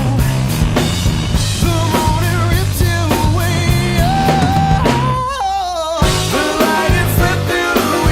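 Rock song with drums, bass and a lead vocal. About five seconds in the band drops out for a moment under a held, wavering sung note, then comes back in about a second later.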